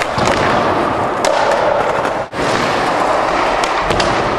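Skateboard wheels rolling on a smooth concrete floor, with several sharp clacks of the board popping and landing tricks, and the board meeting a ledge near the end. The sound briefly drops out about two seconds in.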